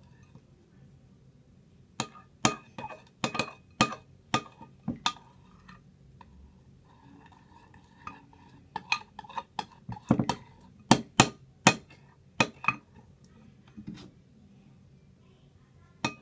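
Plastic spoon clinking and knocking against a glass mixing bowl while stirring homemade slime: scattered runs of sharp taps, with a pause of a few seconds in the middle.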